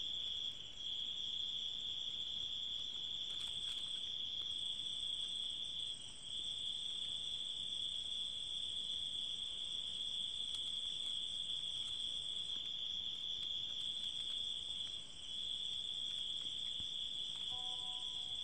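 A cricket trilling steadily at one high pitch, with short breaks about a second in, around six seconds in and around fifteen seconds in.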